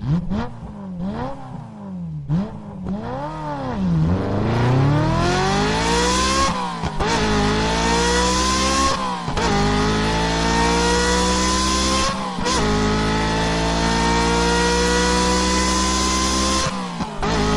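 Ferrari engine blipped several times in quick revs, then accelerating hard with a steadily climbing pitch through four upshifts. Each upshift is a brief break followed by a drop in pitch.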